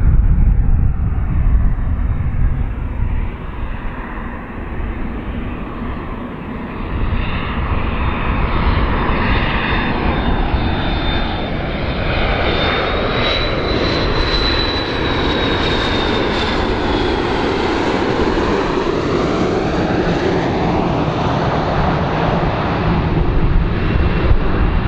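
McDonnell Douglas MD-82 airliner on landing approach, its two rear-mounted Pratt & Whitney JT8D turbofans giving a steady low rumble and a thin high whine. The whine rises slightly in pitch towards the middle and then falls away. The sound grows louder about a third of the way in as the jet comes closer.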